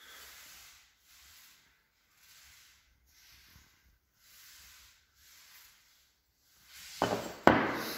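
A small ceramic tile handled in the hand, with faint rubbing sounds about once a second. Near the end come two loud knocks half a second apart as it is set down on a wooden board table.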